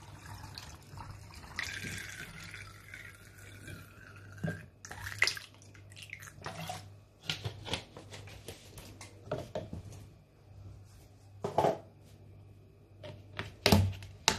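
Water running into a plastic bottle, then a scatter of sharp clicks and knocks as the plastic bottle is handled and its cap screwed on, under a faint steady low hum.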